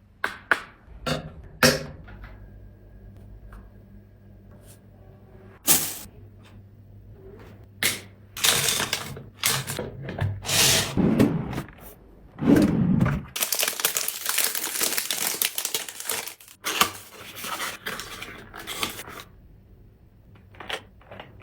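Hands handling plastic product containers and packaging: a series of sharp clicks and taps, then longer rustling. A dense crinkling stretch of a few seconds comes just past the middle, followed by scattered handling sounds.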